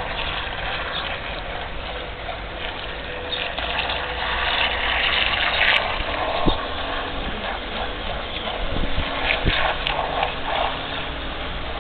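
Radio-controlled bait boat's small motor running steadily as its propeller churns a wake, with a thin steady whine under a constant hiss. Two dull knocks come about six and nine and a half seconds in.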